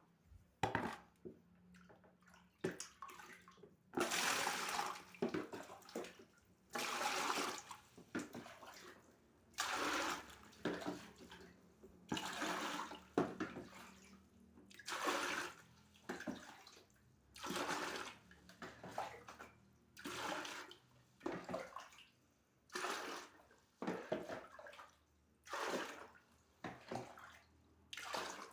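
Water being scooped out of a small decorative waterfall basin and dumped, a splash of poured water about every two seconds; the basin is being drained to keep mosquito larvae from breeding.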